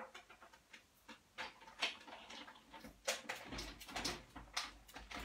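Clicks and knocks of a metal cutting die and plates being handled, then, from about three and a half seconds in, a low rumble as a hand-cranked Sizzix Big Shot die-cutting machine rolls the plate sandwich through to cut out a small circle.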